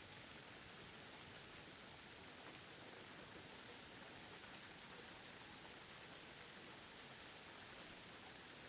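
Faint, steady rain, with a few light drop ticks now and then.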